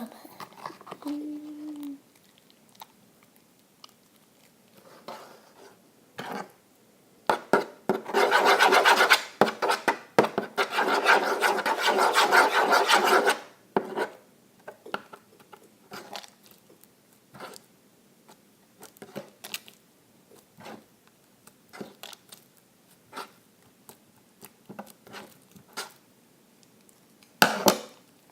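Hands kneading and squeezing sticky homemade slime, giving scattered short wet clicks and squelches. About eight seconds in there is a loud stretch of continuous rushing noise lasting roughly five seconds.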